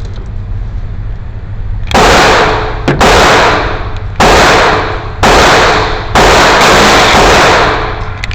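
Glock 19 Gen 6 9mm pistol firing a string of single shots, about one a second, beginning about two seconds in, each shot trailing off in a long echo.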